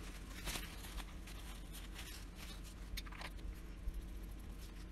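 Faint scattered small clicks and ticks of a PenBBS 456 vacuum-filler fountain pen's plastic and metal parts being handled and twisted, over a low steady background hum.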